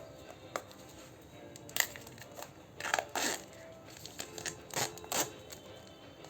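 Packaging being handled: crinkling and rustling of plastic or paper in a few short bursts, with scattered small clicks and knocks, over faint background music.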